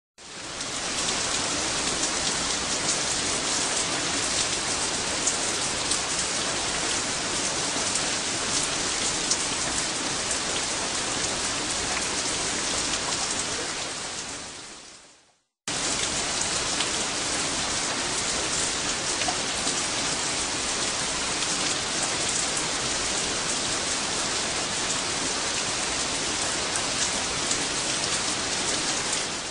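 Heavy rain, a dense steady patter of drops. It fades out about halfway, stops briefly, then starts again abruptly and fades near the end.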